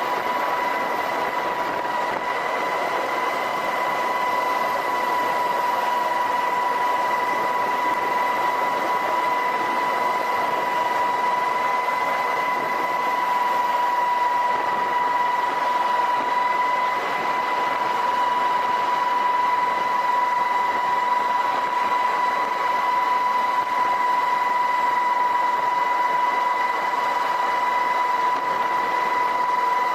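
MH-60S Seahawk helicopter running steadily: a constant high whine from its turbines and transmission over a steady rushing noise, with no change in pitch or level.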